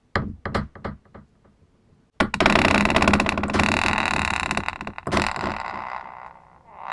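Creaking door hinge: a few short creaks in the first second, then a long, loud, rasping creak from about two seconds in as the door swings, with a second surge a little after five seconds before it fades out.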